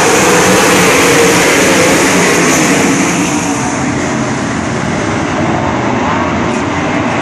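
A pack of dirt-track sprint cars' V8 engines racing by together, loudest as the cars sweep past in the first few seconds, then a little softer as the field carries on around the track.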